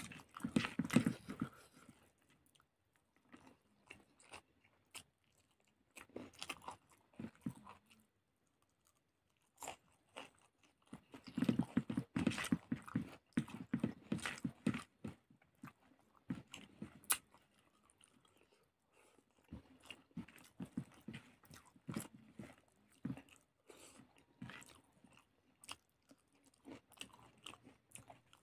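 A person chewing a mouthful of food close to the microphone, in several bouts of quick clicks and mouth sounds, loudest in the first two seconds and again from about eleven to fifteen seconds in.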